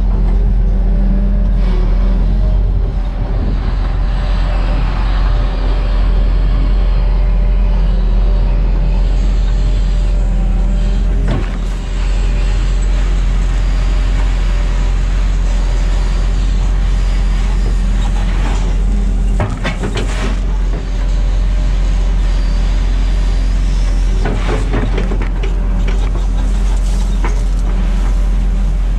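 Cat 313FL excavator's diesel engine running steadily under hydraulic load, heard from the cab. A few short scrapes and knocks come through as the grading bucket works the gravel.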